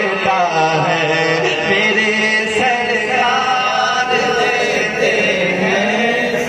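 A man's voice singing a naat, an Urdu devotional poem in praise of the Prophet, with no instruments, drawing out long held notes that bend up and down in melismatic runs.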